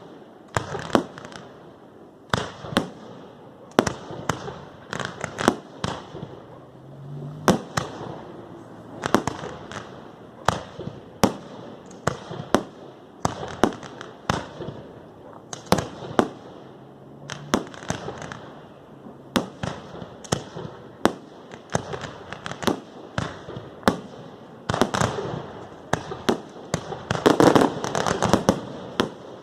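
Fireworks display: a running string of sharp bangs, irregular and several a second, thickening into a dense, louder barrage near the end.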